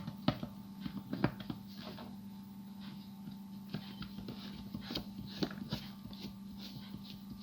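Small screwdriver working a screw out of a plastic toy figure: irregular light clicks and scrapes of metal on plastic. A faint steady low hum runs underneath.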